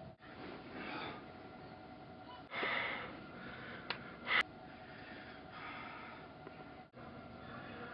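A man breathing and sighing as he wakes up in bed, with a breathy sigh about two and a half seconds in, over faint room hiss. A short sharp sound just past four seconds in is the loudest thing.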